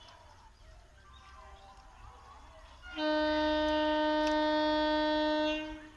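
Electric multiple unit local train's horn sounding one long, steady blast of nearly three seconds, starting about halfway through.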